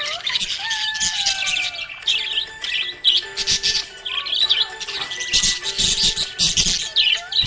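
Budgerigars chirping and chattering, with many short chirps in quick succession and overlapping, without a break.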